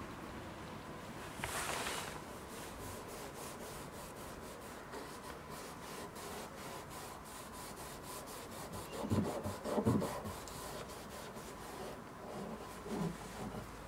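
Cotton makeup pad rubbing trim restorer back and forth over a textured black plastic car door handle, a faint repeated scrubbing. A few dull low bumps stand out about two thirds of the way through.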